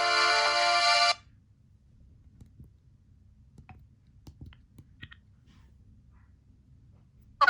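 Motorola RAZR V8 polyphonic ringtone melody playing for about the first second, then cutting off suddenly. Faint scattered clicks follow.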